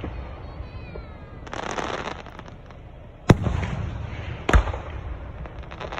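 Aerial fireworks going off: a burst of hissing crackle about a second and a half in, then two sharp booms about a second apart, each followed by crackling and low rumble.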